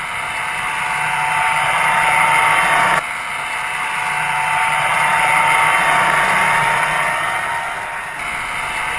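Small motorboat's outboard engine running steadily at speed, with a rush of water and wind over it. The sound changes abruptly about three seconds in and again near the end.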